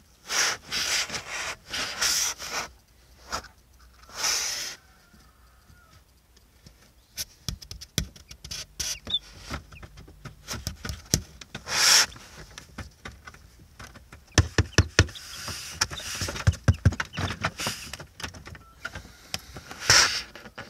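Scratchy rustling and light tapping in an egg incubator where chicks are hatching. It comes in scraping bursts near the start, at about four, twelve and twenty seconds. Between them are runs of quick small taps and knocks.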